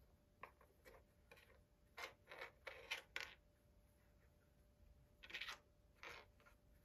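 A cat rummaging in a plastic Cat Activity Fun Board treat puzzle: short, faint plastic clicks and rattles of dry treats, in a quick cluster about two to three seconds in and again near five and six seconds.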